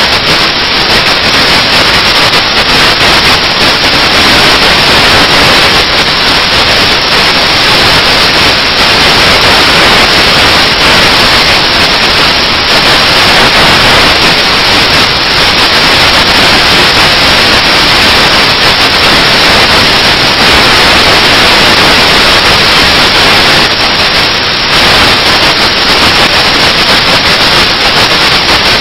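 Loud, steady static hiss that covers everything else, with no change in level.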